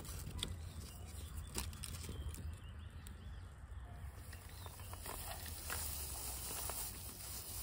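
Faint rustling and crinkling of a plastic food-prep glove working a lemongrass-and-herb marinade onto a whole tilapia, with a few small clicks in the first half and a steady low rumble underneath.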